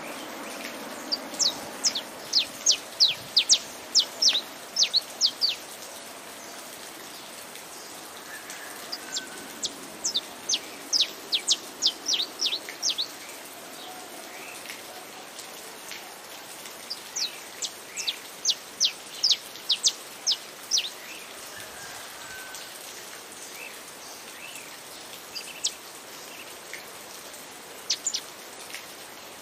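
Saffron finch singing: three bouts of rapid, sharp, down-slurred notes, a few seconds apart, with scattered single notes near the end. Under it runs a steady hiss of rain.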